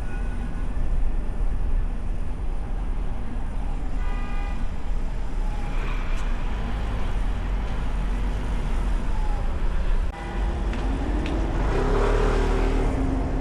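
Car driving through city traffic, recorded from a hood-mounted camera: a steady low rumble of road and wind noise with passing traffic. A short pitched sound comes about four seconds in, and a rising tone from another vehicle near the end.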